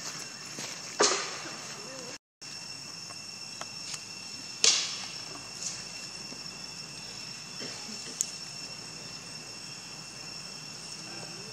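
Insects droning steadily in two high, unchanging tones, with two sharp snaps about a second in and a little before the middle, a few fainter clicks later, and a brief cut-out of all sound about two seconds in.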